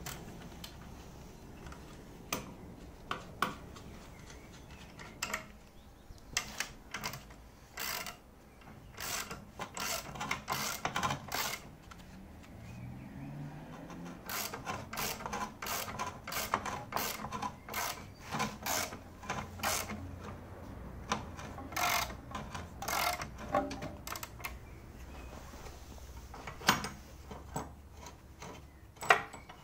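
Ratchet wrench clicking in irregular runs with short pauses as it winds the threaded rods of a coil-spring compressor down on a front suspension spring.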